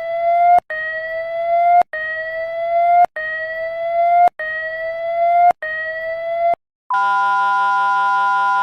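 Emergency alert alarm tones: a rising whoop-like tone repeated about six times, each a little over a second long, then near the end a loud steady chord of several tones held together.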